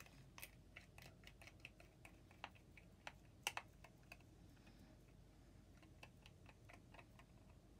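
Faint, irregular small clicks and taps, a few a second, from fingers working at the edge of a silicone resin mould full of glitter. Two sharper clicks come close together about three and a half seconds in.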